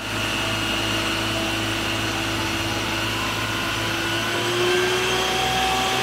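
Isuzu water tanker truck's engine and water pump running while its roof water cannon sprays: a steady hiss with a held whine that steps up slightly in pitch about four seconds in.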